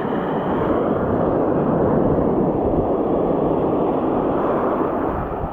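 Surf washing over a rocky reef flat close to the microphone: a loud, steady rushing of water that swells in at the start and eases off near the end.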